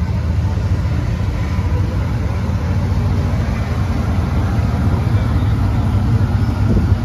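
Lifted Ford Bronco's engine running with a steady deep note as the truck rolls slowly past at walking pace.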